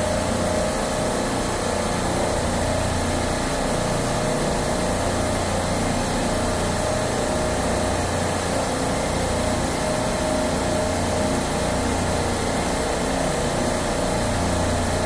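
Steady drone of supermarket refrigeration compressors running in a machine room, a constant low hum with a steady mid-pitched tone over it.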